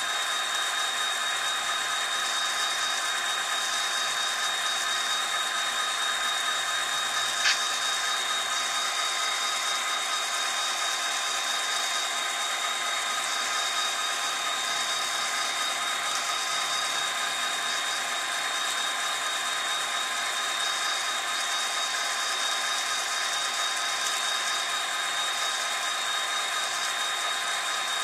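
HO scale model freight train running along the track: a steady rattling rush of the wheels rolling, with a thin steady high whine, and one sharp click about seven and a half seconds in.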